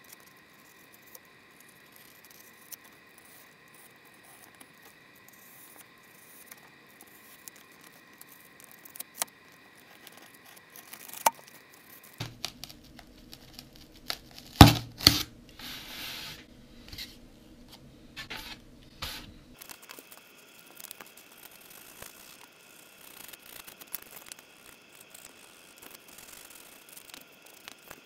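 Utility knife blade cutting and scraping through polystyrene foam, with scattered light scratches and clicks. A louder, busier stretch in the middle holds two sharp cracks about halfway through.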